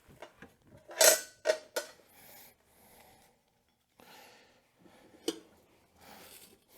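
Tire spoons levering the bead of a stiff dirt-bike tire over a rim: a quick cluster of three short scraping, clanking strokes about a second in, then one more a little after five seconds.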